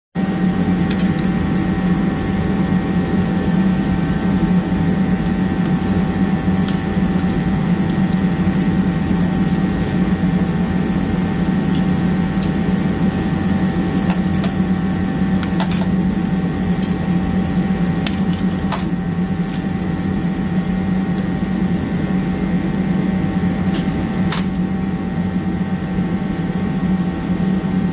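Garage heater running with a steady hum, a few light clicks scattered over it.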